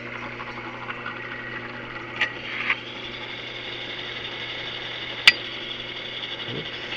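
Belt-driven drill press running steadily while drilling a pilot hole, its motor hum even throughout. A few sharp clicks from the bit and workpiece cut in, the loudest a little past five seconds in.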